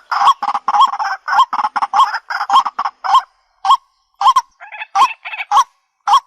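White-breasted waterhen calling: a steady series of short, hooked notes repeated about twice a second.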